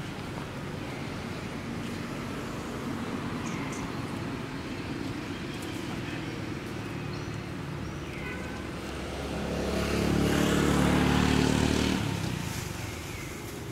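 A motor vehicle's engine passes by, swelling a little over halfway through, loudest for about two seconds, then fading, over steady outdoor background noise. A few short high chirps come and go.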